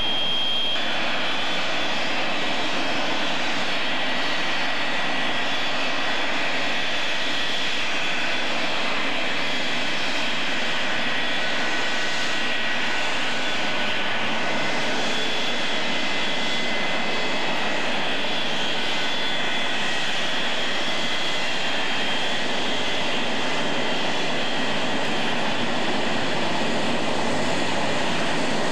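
Boeing 727-200's Pratt & Whitney JT8D turbofans running at low taxi power as the airliner rolls slowly past. The sound is a steady rushing jet noise with a high whine over it, and freeway traffic noise underneath.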